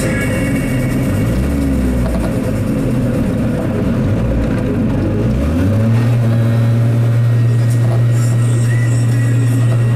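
Piaggio Ape 50's 50 cc two-stroke single-cylinder engine under way, its pitch rising and falling for the first half, then climbing about halfway through and holding a steady high-revving note a little louder.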